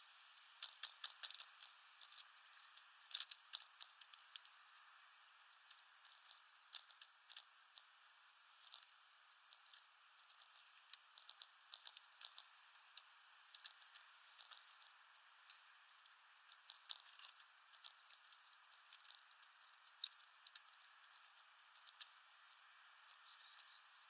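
Eurasian tree sparrows pecking at and cracking sunflower seeds on a feeder tray: irregular quick clicks and taps, with a cluster of louder ones about three seconds in.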